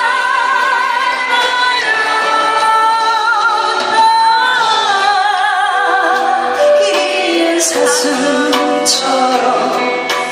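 Music: a slow ballad, its lead melody holding long notes with wide vibrato over an accompaniment.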